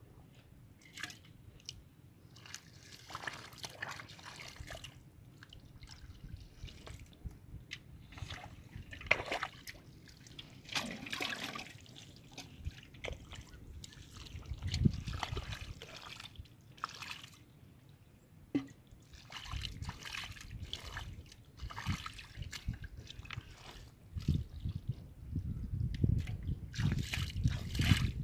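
Hands sloshing and splashing in shallow muddy water, groping through the mud for fish, in irregular bursts.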